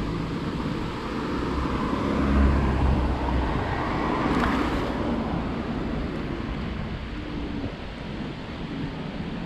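Street traffic: a car passing on the road alongside, loudest a few seconds in, over a low rumble of wind on the microphone.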